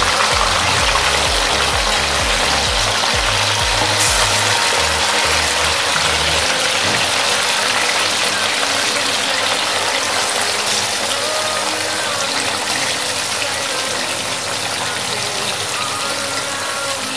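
Marinated chicken pieces frying in hot oil in a pan: a loud, steady sizzling and bubbling hiss.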